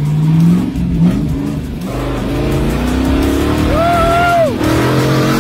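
The Jeep CJ's 6.0-litre GM LQ9 V8 revs hard while spinning donuts on dirt, and its pitch climbs over the second half. A passenger lets out one long yell about four seconds in.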